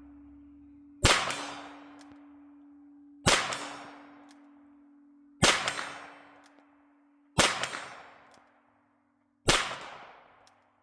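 High Standard Double-Nine .22 LR revolver firing five shots, one about every two seconds, each sharp report trailing off in a long echo.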